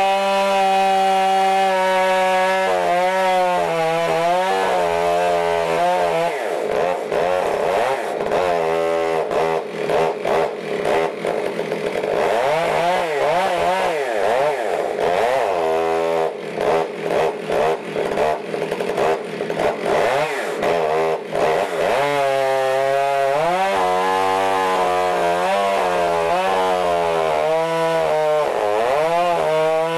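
Modified Stihl MS661 two-stroke chainsaw running on a chainsaw mill, ripping a slab lengthwise through a log cant. The engine pitch wavers up and down through the middle of the cut and is steadier near the start and end.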